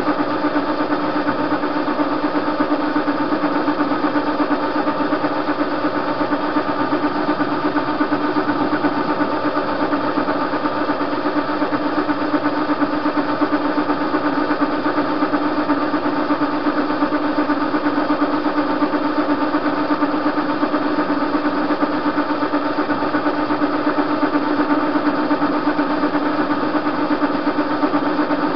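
TV-16 metal-turning lathe running, its chuck spinning a bar: a steady mechanical hum with one prominent tone, unchanging throughout.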